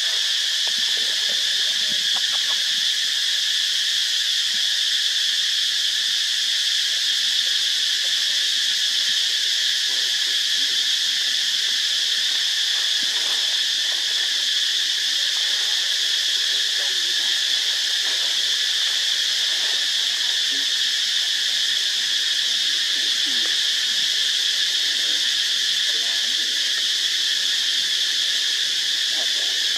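A steady, unbroken insect chorus: an even, high-pitched drone that holds at the same level throughout.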